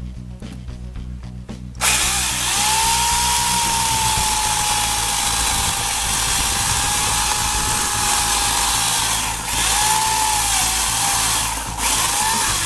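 Chicago Electric 14-inch electric chainsaw with a 1 3/4 horsepower motor, starting suddenly about two seconds in and cutting through a 4-inch branch. Its motor whine sags a little in pitch as the chain bites, with a couple of brief lulls near the end.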